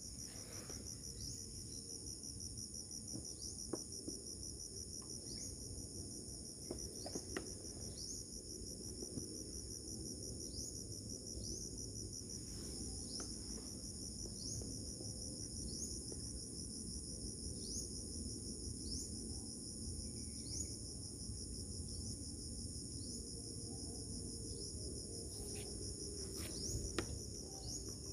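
Insects trilling steadily in a high, continuous chorus with a pulse about once a second, over a low rumble, with a few faint clicks around 4 and 7 seconds in and again near the end.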